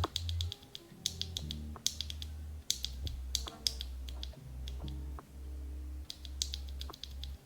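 Typing on a Crush 80 mechanical keyboard with Akko Creamy Yellow U1 switches, which are factory-lubed 45 gf linears on an FR4 plate: irregular runs of quick keystrokes giving a deep clack, under soft background music.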